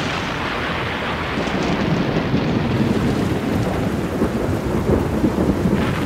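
Thunderstorm sound effect: steady rain with rolling thunder. The rumble grows louder about a second and a half in.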